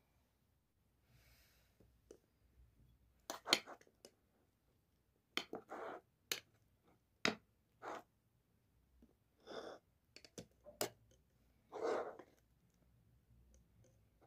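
Metal fork clinking and scraping against a ceramic bowl while scooping a soft mash. The sounds come as a scattering of sharp clicks and short scrapes, with pauses between them.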